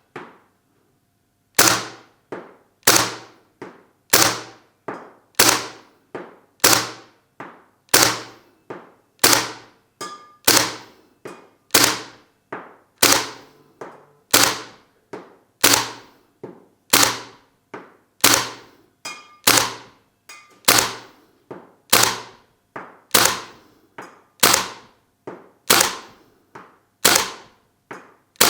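Well Pro WE06 airsoft gas blowback AK rifle, running on green gas, firing single shots on semi-auto, each a sharp crack with the bolt cycling. The shots come at an even pace of about one every 1.3 seconds, around twenty in all.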